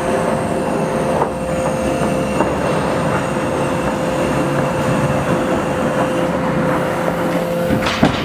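Sawmill machinery, a band saw headrig and log carriage, running with a loud steady mechanical noise and a steady whine, broken by a few knocks. Near the end the whine drops away as a sharp clatter comes in.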